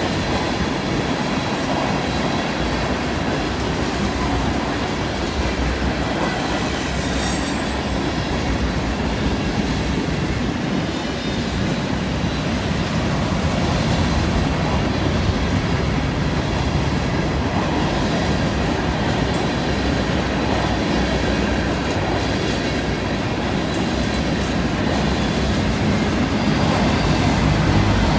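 Freight train's tank cars and covered hopper cars rolling past on a curve: a steady rumble of steel wheels on rail with clicks over the joints and faint wheel squeal from the curve, growing a little louder near the end.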